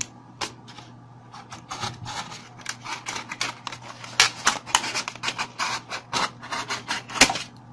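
Snap-off utility knife slicing through a thin clear plastic egg tray, the plastic crackling and clicking in a quick irregular series as it is cut and bent.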